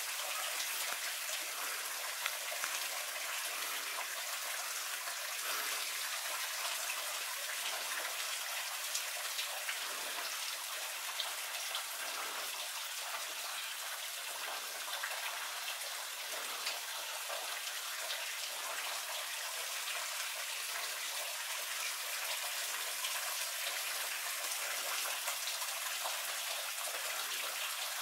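Steady patter of meltwater dripping from icicles along a rock overhang, many small drops like light rain.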